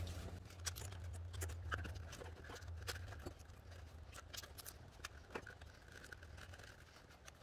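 Faint scattered clicks and rustling of plastic wiring-harness connectors being handled and pushed onto fuel injectors, over a steady low hum.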